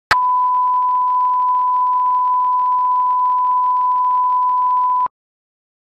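Steady line-up test tone at the head of a video master: one pure, unwavering beep held for about five seconds. It starts with a click and cuts off suddenly.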